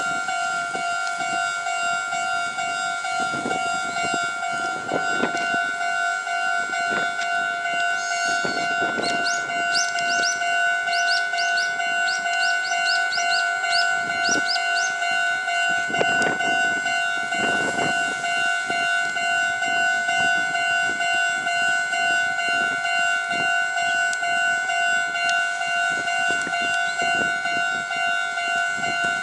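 Japanese level-crossing warning bell ringing steadily, an electronic two-tone chime. There are several brief louder noise surges, and a run of short high rising chirps around the middle.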